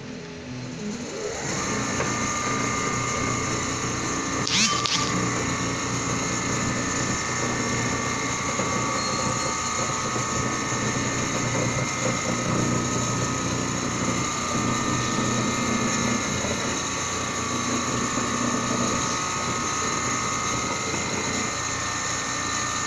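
Richpeace large-format CNC sewing machine stitching a quilted panel: the needle head runs at speed with a steady whine from its drive over a dense mechanical chatter, building up over the first two seconds. A brief sharp sound about four and a half seconds in is the loudest moment.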